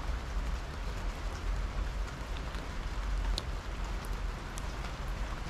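Steady rain falling on a wet tabletop and garden plants, with a few sharper single drop hits and a low rumble underneath.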